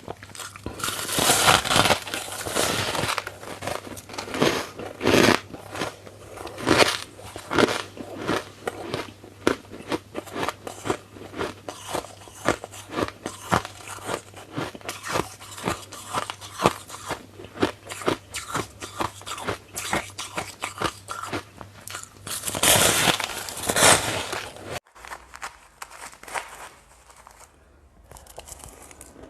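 Dense, irregular crunching and crackling, with louder clusters now and then. It stops abruptly about 25 seconds in, along with a faint low hum underneath, leaving only faint crackles.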